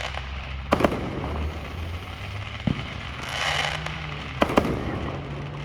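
Aerial fireworks exploding: a quick double bang about a second in, a single bang near three seconds and another double bang at about four and a half seconds. Between them a hissing crackle rises and fades.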